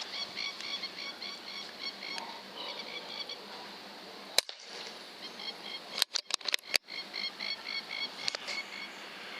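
Rhythmic chirping calls of a night-calling animal, about five short chirps a second, in two long runs. Several sharp clicks break in near the middle and a couple of seconds later.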